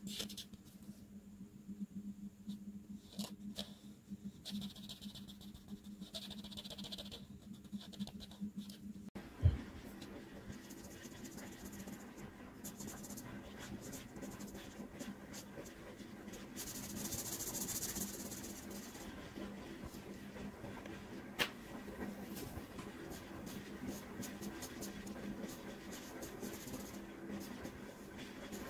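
Art markers stroked across paper: a run of short, scratchy strokes. One low thump about a third of the way through is the loudest sound.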